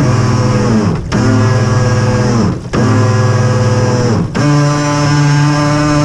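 Background music with guitar, its chords changing about every one and a half seconds.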